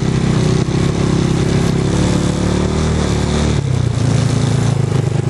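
Side-by-side UTV engine running under way, with a rushing noise over it; the engine note changes about three and a half seconds in.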